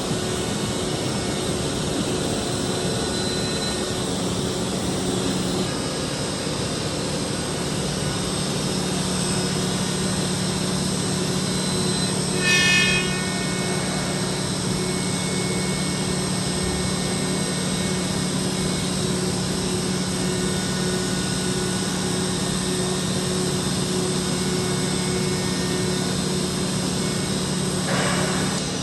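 5-axis CNC milling machine running steadily as it machines a faceplate: a constant whine and hum from the spindle and cut, with a brief higher-pitched tone about halfway through.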